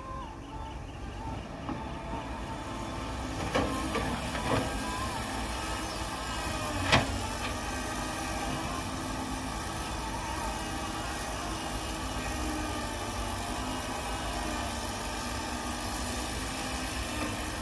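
Heavy diesel machinery running steadily with a low rumble, with a few knocks near the start and one sharp bang about seven seconds in.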